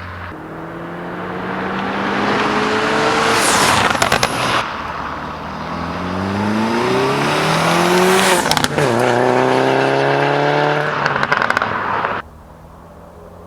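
2007 Subaru Legacy GT Spec B's turbocharged 2.5-litre flat-four, on equal-length headers and a Megan Racing catback exhaust, accelerating hard with the pitch climbing through the revs. There are two upshifts, one about four seconds in and one near nine seconds. Shortly after twelve seconds the sound drops away suddenly to a quieter, steady engine note.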